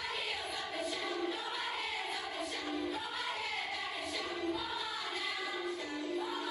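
Teenage gospel choir singing together, with several long held notes.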